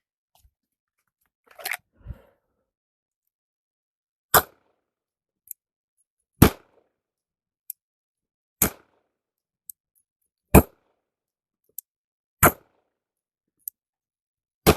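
Six pistol shots from a SIG P320 X5 handgun, fired at an even slow pace about two seconds apart. A faint click falls between each pair of shots.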